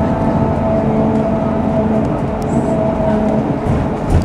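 Cabin noise inside a Mercedes-Benz OC500LE city bus on the move: the diesel engine and drivetrain run with a steady hum and whine over road noise. There is a low thump near the end.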